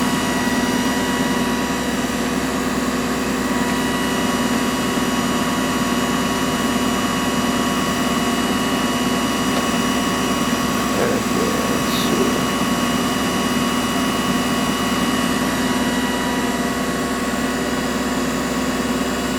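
Chevalier CGP-816 CNC cylindrical grinder running with its grinding wheel spinning and hydraulics on: a steady mechanical hum with several steady high tones over it. There is a faint click about twelve seconds in.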